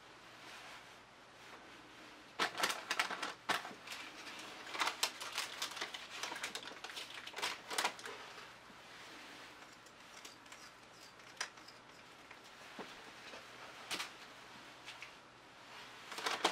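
Irregular bursts of light clicks and taps, thick for a few seconds from about two and a half seconds in, then only a few scattered clicks.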